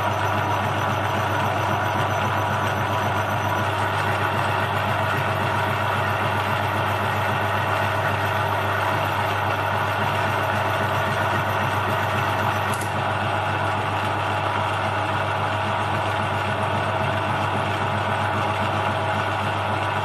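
Small metal lathe running steadily, its motor and spindle giving an even hum with a constant whine, while it turns an aluminium rod being skimmed clean with a carbide-insert tool.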